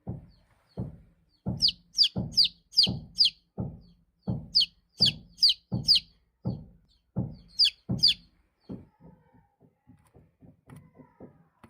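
Baby chicks peeping: short high peeps throughout, with louder runs of three or four falling peeps about 2, 5 and 8 seconds in. A steady series of dull low thuds, roughly two a second, runs under the peeps and turns fainter and quicker in the last few seconds.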